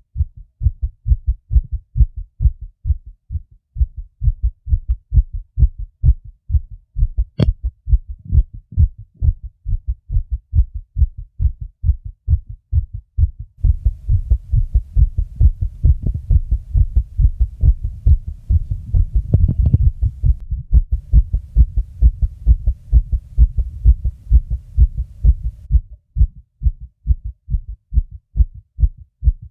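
A person's fast heartbeat: low thumps coming quickly and evenly in close pairs. From about halfway in until near the end a low steady rumble sits under the beats, and one sharp click comes about a quarter of the way in.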